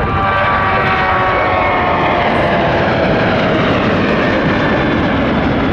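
Jet airliner engines running at a loud, steady level as the aircraft moves past. Several whining tones glide slowly down in pitch over a few seconds, the sign of the plane passing and moving away.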